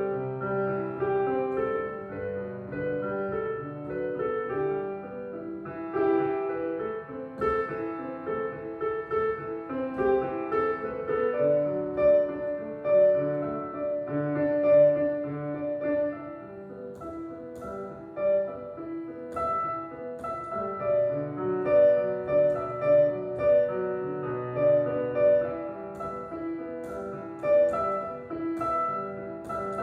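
Electronic piano played solo: a melody over lower chords and bass notes.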